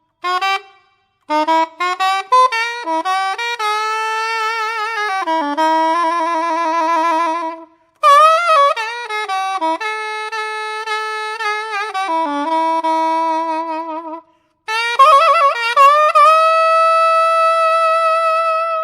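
B-flat straight soprano saxophone playing a solo melody in three phrases, with vibrato on the held notes, ending on a long held note.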